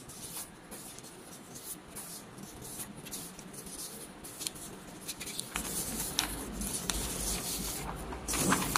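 Sheets of printed copier paper rustling and sliding as a stack of test prints is leafed through by hand, with a low rumble coming in about halfway.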